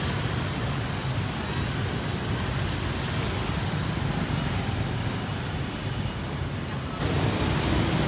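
Street traffic, mostly motorbikes, a steady din of engines and tyres that gets louder about seven seconds in.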